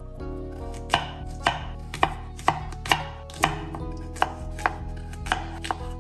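Kitchen knife chopping raw potato into chunks on a bamboo cutting board: about ten sharp knocks, roughly two a second, starting about a second in.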